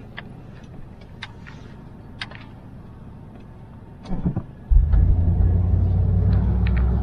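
Car engine heard from inside the cabin. It is quiet with a few faint clicks at first, then rises suddenly to a loud, steady low drone a little under five seconds in as the car pulls away.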